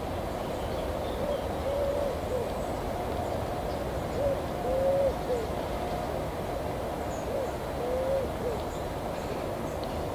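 A pigeon cooing in three short repeated phrases of soft arching notes, over a steady low rumble.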